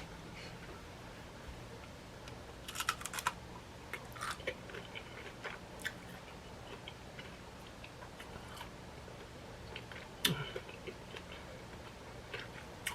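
Tortilla chips on a nacho plate crunching faintly in a few short bursts: a cluster about three seconds in, another a second later, and the loudest crunch about ten seconds in, with scattered small clicks between them over a faint low hum.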